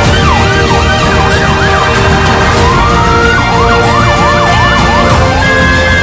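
Electronic emergency-vehicle siren on a fast yelp, about three sweeps a second, switching briefly to a slower rising wail about halfway through, then back to the yelp, with a long falling tone starting near the end. Background music plays under it.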